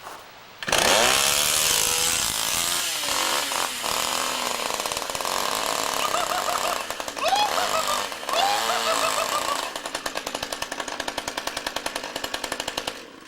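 A chainsaw starts up loud and revs up and down, then settles into a fast, even chugging for the last few seconds.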